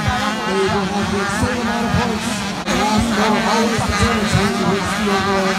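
Several 65cc two-stroke motocross bikes racing, their engines revving up and down over and over as the riders work the track. There is a brief break in the sound about two and a half seconds in.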